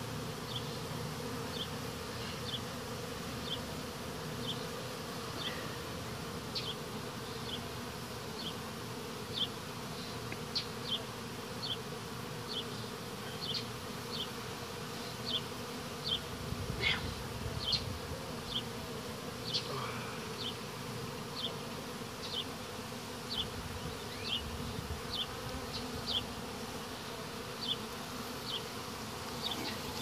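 Honey bees from a colony disturbed by a hive cutout, buzzing in a steady, dense hum. Short high chirps repeat about once a second over the hum.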